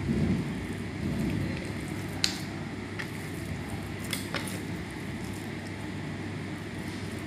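Raw beef steaks being handled and set down on a plastic cutting board: soft wet squelches and a few sharp taps, over a steady low rumble.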